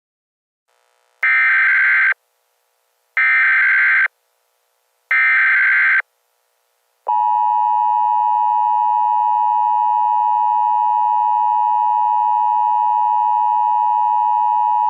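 Emergency Alert System broadcast tones: three bursts of digital header data, about a second each and evenly spaced, then the steady two-tone attention signal held for about eight seconds. Together they signal the start of an emergency alert message.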